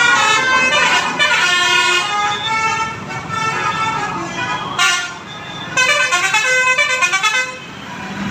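Bus's Basuri multi-tone 'telolet' air horn playing a melody of quickly changing notes, then a short blast about five seconds in and a fast run of notes near the end.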